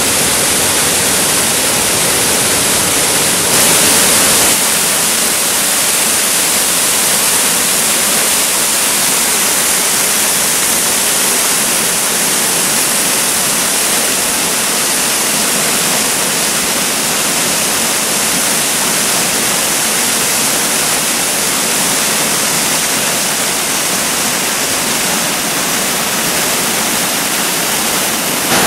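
Waterfall pouring into a pool: a steady rush of falling water, briefly a little louder about four seconds in.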